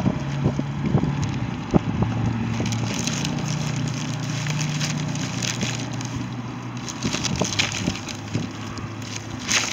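Plastic parts bags crinkling and rustling as they are handled, in short irregular crackles, over a steady low hum.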